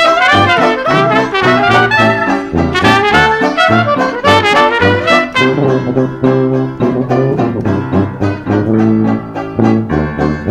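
Background music: a brass melody over a steady beat.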